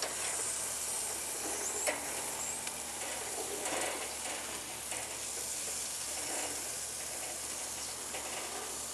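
Basted pineapple wedges sizzling on the hot grate of a charcoal kettle grill as they are turned, with a few light clicks of tongs and a fork against the grate.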